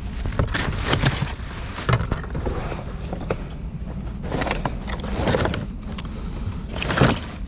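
Rummaging through a curbside trash pile by hand: irregular knocks and clatters of items being moved and pulled out, over a steady low rumble.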